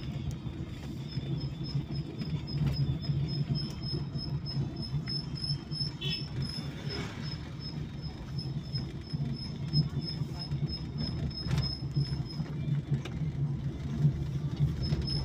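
A moving vehicle's engine and road rumble, heard from inside the cabin. A fast, steady series of high-pitched chirps runs over it, stops near the end and starts again.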